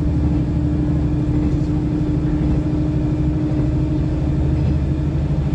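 Inside the passenger cabin of a KiHa 110 series diesel railcar under way: a steady low engine drone and running noise, with a held hum that drops away near the end.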